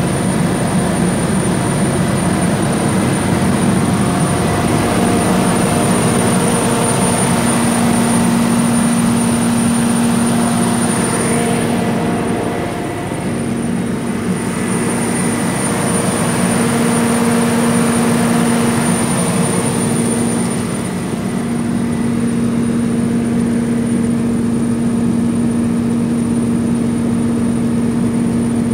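Cummins QSK50-G4 diesel generator set running steadily at 1800 rpm under heavy load, close to its 1500 kW rating, heard inside its enclosure: a loud, constant drone with a thin high whine above it.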